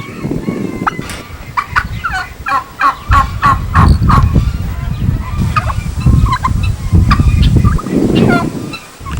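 Farm fowl calling: a quick run of short, rattling notes starting about a second and a half in and lasting a couple of seconds, followed by scattered single calls.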